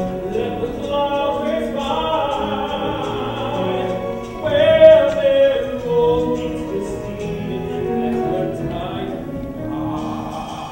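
Live stage musical number: singing with instrumental accompaniment, the voices holding long sustained notes, swelling loudest about halfway through.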